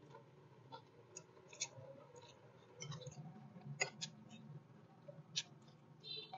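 Faint eating sounds from someone eating morning glory with eggs: small irregular clicks and crunches, a few a second, over a low steady hum.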